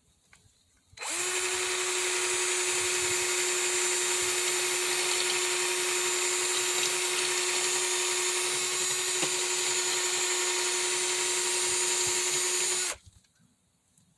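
Small power tool running at one steady speed for about twelve seconds, starting a second in and stopping cleanly near the end, as it dresses a pitted copper soldering-iron tip down to clean metal.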